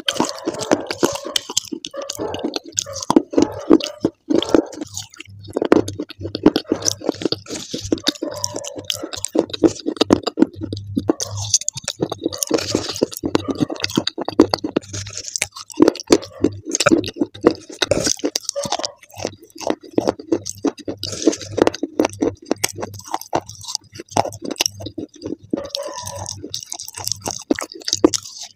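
Close-miked chewing and crunching of dry grey clay chunks: a dense, continuous run of crisp crackles and mouth sounds.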